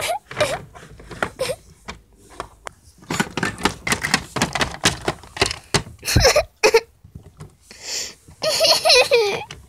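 Clicks and knocks of small plastic toy figures being handled and moved on a plastic playset, with high-pitched laughter near the end.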